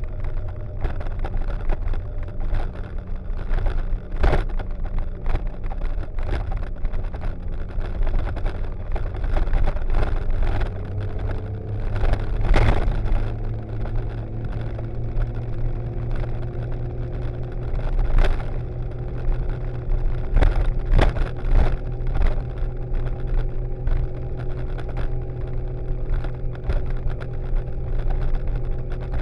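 A motorcycle engine running steadily at cruising speed, mixed with road and wind noise. The engine pitch rises gently about a third of the way in, and a few brief thumps break through now and then.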